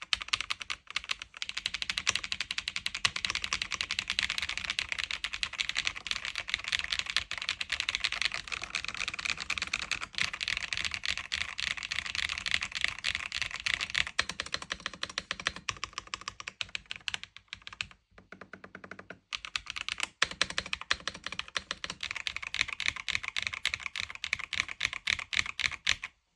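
Mechanical keyboard with Creamy Yellow U1 linear switches being typed on fast and without let-up, a dense run of keystrokes. There is a short pause about eighteen seconds in.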